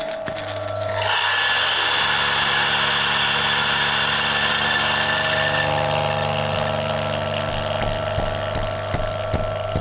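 Coffee Tech DF83 grinder's 550-watt motor spinning its 83mm stainless steel flat burrs at 1400 rpm through a 20 g espresso dose: a steady motor hum, joined about a second in by the noise of beans being ground, which grows fainter in the last few seconds. Not too loud at all.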